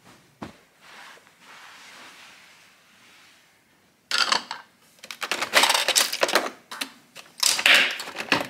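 Sharp clicks and clatters from a Nespresso capsule coffee machine being readied: a ceramic mug knocked down onto its metal-rimmed drip tray and the top lid pressed shut over the capsule. Before that, a few seconds of soft fabric rustling from a pillow being plumped.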